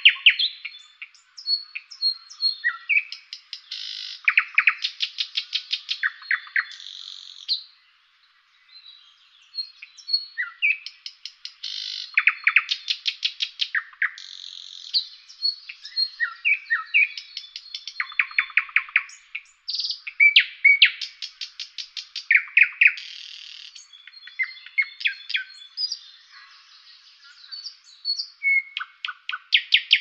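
A songbird singing a long, varied song of fast trills, rapidly repeated notes and short whistles, phrase after phrase, with a brief pause about eight seconds in.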